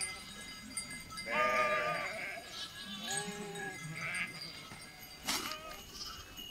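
Sheep in a grazing flock bleating, several calls one after another, the loudest about a second and a half in. A short sharp sound comes about five seconds in.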